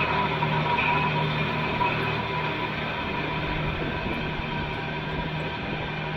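Tractor engine running steadily under load while pulling a tillage implement through the soil, an even drone with no change in pitch.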